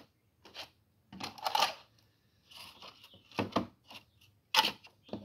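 Clear plastic fish containers clicking and knocking against one another as they are handled on a tray: about six separate sharp clicks and short scrapes.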